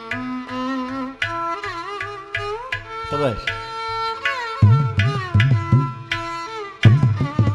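Carnatic music: violin melody with sliding, ornamented notes over a steady run of mridangam strokes, with ghatam accompaniment. About two-thirds of the way through, the mridangam's deep bass strokes come in louder and denser.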